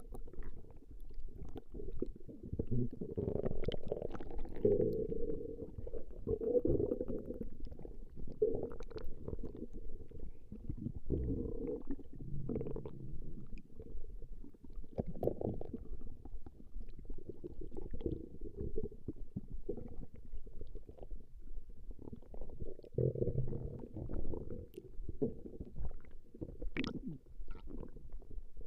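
A person's stomach growling and gurgling on and on: low rumbles that swell and fade, broken by many small pops and gurgles.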